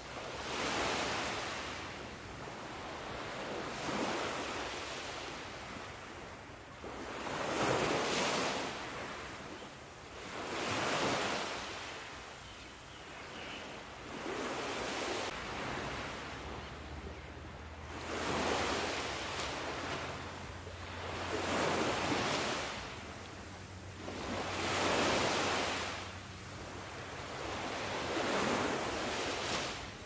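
Sea waves breaking and washing up on a beach, one swell about every three seconds.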